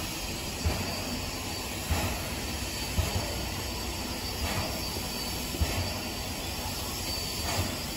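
C11 steam tank locomotive at a standstill or crawl, with a steady hiss of steam and a few soft thumps about a second apart.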